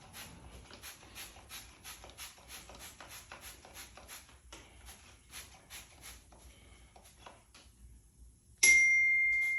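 Soft, repeated rubbing strokes, about three a second, of decal graphics being smoothed by hand onto motorcycle plastic; they thin out after about seven seconds. Near the end a sudden bright ding rings out and decays slowly.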